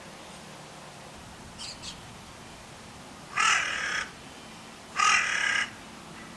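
Carrion crow calling: two loud, hoarse caws about a second and a half apart, each lasting under a second, with a faint short double sound before them.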